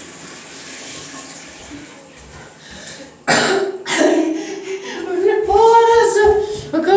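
A person with hiccups: two sudden, sharp hiccups about three and four seconds in, then high-pitched wordless laughing sounds near the end.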